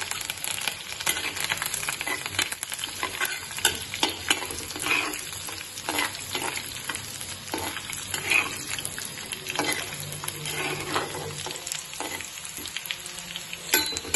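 Tempering frying in hot oil in an earthenware clay pot: dried red chillies, seeds and fresh curry leaves sizzling with a steady hiss and many sharp crackles, while a spatula stirs and scrapes against the pot.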